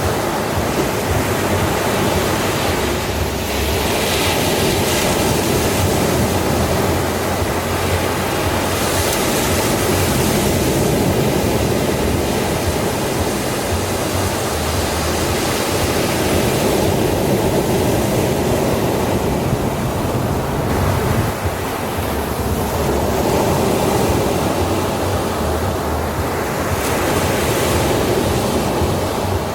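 Ocean surf breaking onto a sandy shore: a continuous rush of water that swells and eases every several seconds as waves come in.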